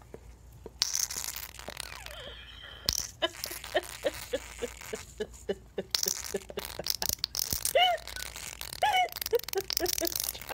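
Chewed-open aerosol can of squeeze cheese sputtering by itself: bursts of hissing propellant and a quick irregular run of small wet pops and squeaks as cheese spits from the nozzle. The dog's chewing has damaged the can so that it leaks and dispenses on its own.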